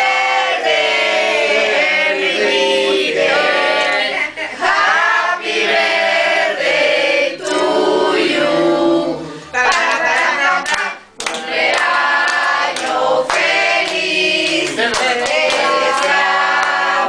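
A group of people singing a birthday song together, with some hand clapping, after a short break in the singing about halfway through.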